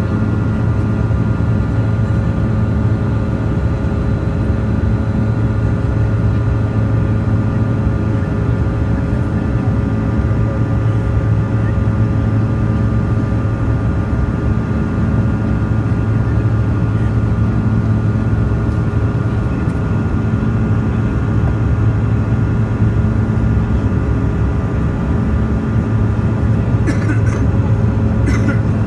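Steady cabin noise of a Bombardier CRJ-200 in its climb after takeoff: the drone of the jet's engines, with a strong low hum and a few steady whining tones above it. Two faint clicks near the end.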